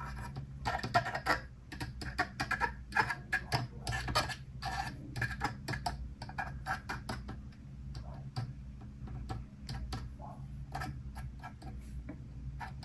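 Irregular light clicks and taps of small plastic model-kit parts being handled and pressed together, over a steady low hum.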